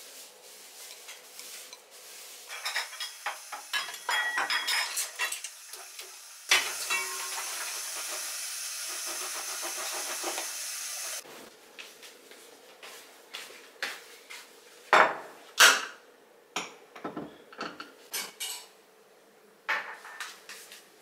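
Kitchen sounds: dishes and utensils clattering, a steady hiss that starts and stops abruptly about five seconds long in the middle, and scattered knocks, two of them loud about two-thirds of the way in.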